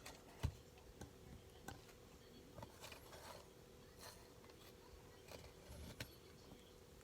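Near silence: a faint steady hum with scattered small clicks and taps, and one sharper knock about half a second in.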